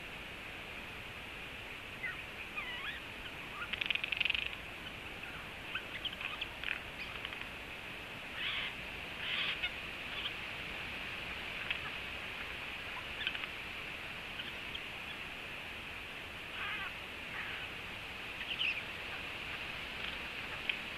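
Eurasian jay giving an irregular string of short squeaks, chirps and clicks, louder about four seconds in and again around nine seconds, over a steady hiss.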